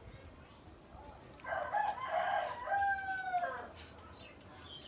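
A rooster crowing once, a call of about two seconds that starts about one and a half seconds in and ends on a long held note that falls away.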